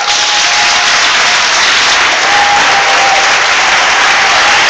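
Audience applauding steadily, breaking out suddenly right at the start.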